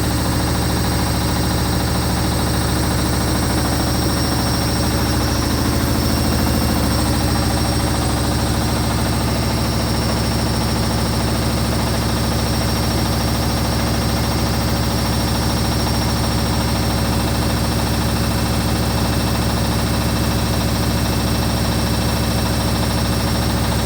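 Hoover HLW585DC washer dryer's drum spinning at speed during the spin, a loud, steady hum with a fast vibration from the machine. The machine stands badly unlevel, which makes it shake and bounce as it spins.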